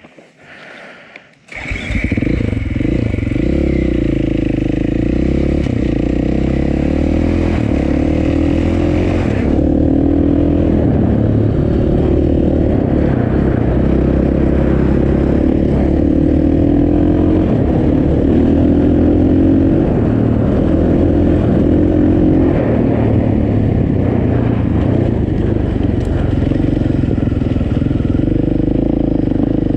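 Motorcycle engine running, cutting in suddenly about a second and a half in, its pitch rising and falling with the throttle.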